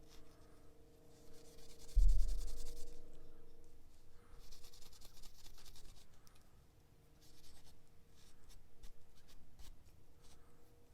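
Rapid hand-scrubbing strokes on the metal of a pair of pliers, in three spells of a second or two each. About two seconds in comes a loud, dull thump that dies away slowly.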